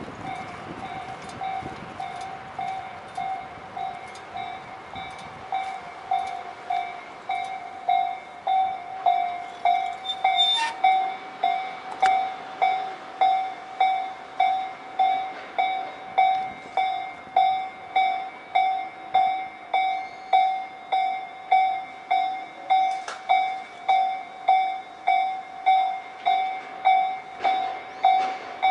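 Japanese railway level-crossing warning bell ringing, a repeated electronic ding at about one and a half strikes a second. It grows louder over the first third, then rings steadily.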